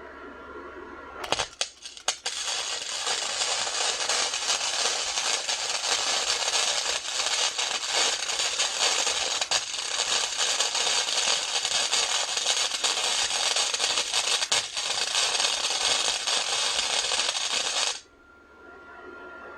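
Flux-core arc welding with a Century FC-90 wire-feed welder on half-inch steel: a few sputtering strikes about a second in, then a steady crackling sizzle as the bead is laid for about sixteen seconds, stopping abruptly near the end. The arc holds this time rather than tripping the breaker.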